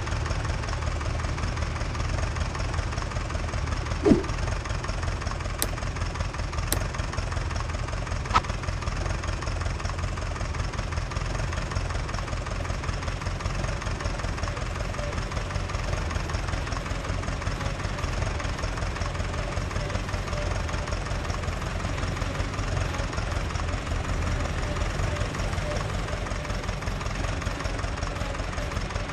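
An engine running steadily at idle, a constant low drone, with a few sharp clicks in the first third.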